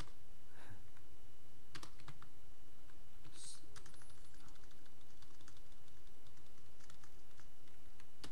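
Computer keyboard typing: irregular, scattered keystrokes over a steady low hum.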